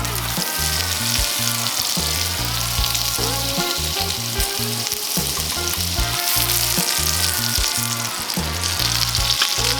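Food frying and sizzling steadily in a hot pan, with music playing underneath.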